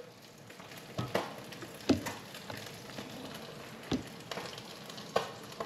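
Soft, steady sizzle of a butter pan sauce in a cast-iron skillet on a low gas flame, with fish frying in a second pan. A few short, light knocks and clinks are heard about a second in, near two seconds, at four seconds and again near five.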